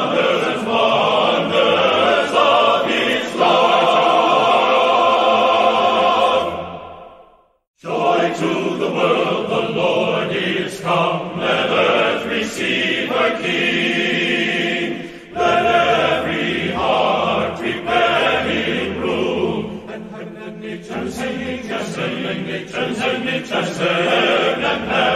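Choir singing music, fading out to silence about seven seconds in, then starting again a moment later.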